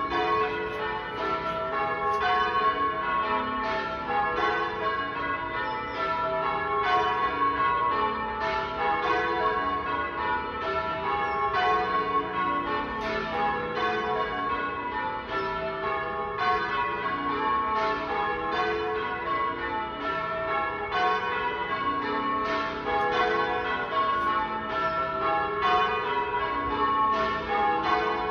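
Church bells change ringing: a continuous, evenly paced run of bell strikes, each ringing on into the next.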